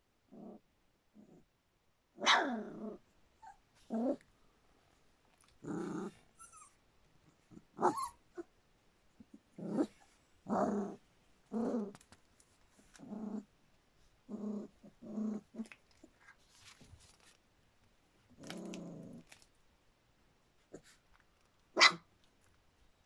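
Three-week-old Standard Poodle puppies play-growling and giving small yaps as they wrestle, in a string of short separate growls with pauses between; a sharp yap near the end is the loudest.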